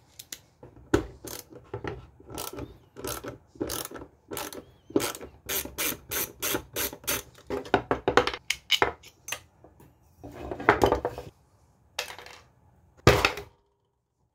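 Stanley socket wrench ratchet clicking in quick runs while undoing the pivot bolt of a pair of pruning shears, with metal parts knocking on a wooden table. A few louder knocks come near the end.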